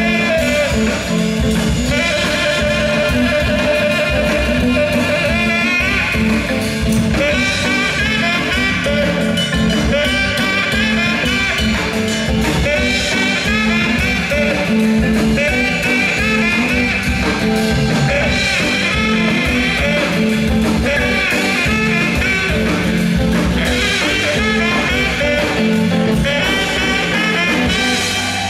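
A live band playing a song at full volume.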